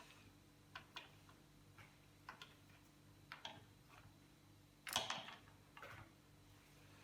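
Light clicks and taps of small metal parts being handled, a few a second, with a louder scraping rattle about five seconds in, over a faint steady low hum. These are the sounds of fitting the other end of the pressure gauge's broken pipe into a connector sleeve, ready for soldering.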